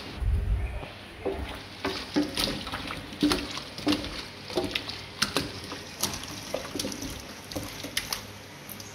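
Hands squishing and turning raw chicken pieces in a wet marinade in a stainless steel sink: irregular wet smacks and squelches about every half second. A brief low thump just after the start.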